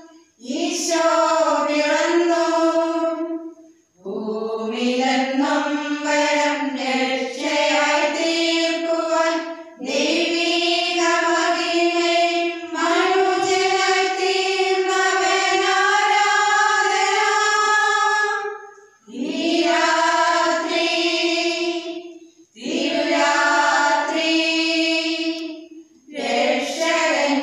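A small women's group singing together without accompaniment, in phrases of a few seconds with short pauses for breath between them.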